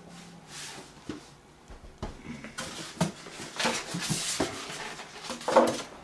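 Hands handling objects on a work surface: scattered clicks and knocks with rustling, and a short squeak near the end.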